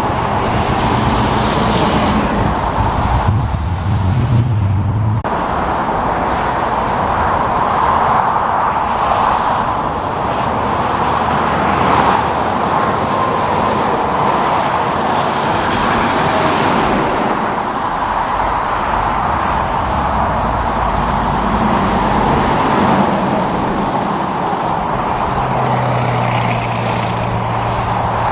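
Highway traffic passing steadily: tyre noise from cars and heavy trucks swells and fades as each one goes by. Now and then a truck's engine drones low beneath it, most clearly near the end.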